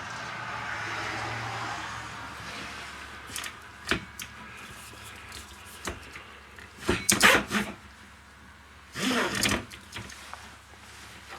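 Kitchen drawers and cabinet doors in a travel trailer being opened and shut: a few light knocks, then two louder sliding clatters about seven and nine seconds in.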